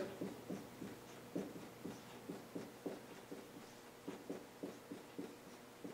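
Dry-erase marker writing on a whiteboard: a string of short, faint strokes and taps, irregular at about two to three a second, as figures are written out.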